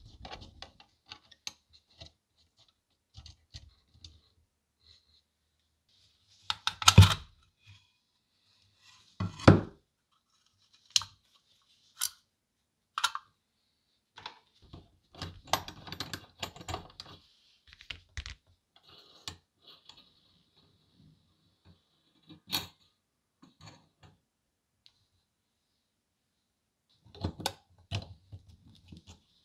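Scattered clicks, clinks and knocks of the metal parts of a vintage APSCO "Dandy" crank pencil sharpener as it is handled and taken apart by hand, with louder clattering about seven and nine and a half seconds in.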